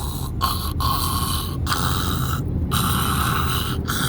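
A person snoring over a steady low rumble.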